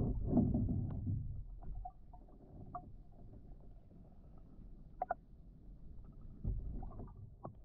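Wooden otter tail canoe paddle pulling through the water, heard from underwater: a muffled low swish of a stroke lasting about a second and a half at the start, and another about six and a half seconds in. A few small clicks or pops fall between the strokes.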